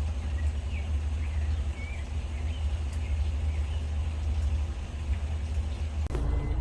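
Boat motor running low and steady, its pitched note coming up about six seconds in, with a few faint bird chirps over it.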